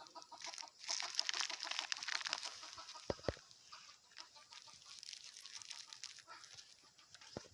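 Chickens clucking in quick repeated notes, with a loud spell of crinkling plastic about a second in as a piece of plastic litter is picked up and handled, and a few sharp knocks from handling later on.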